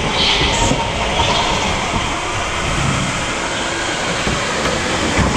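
Rental kart running at speed on an indoor track: steady rumble of the kart's motor and tyres, with wind buffeting the onboard microphone.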